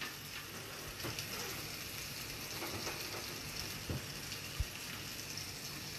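Faint steady sizzling of food frying in a pan, with a few light clicks and two soft knocks about four seconds in.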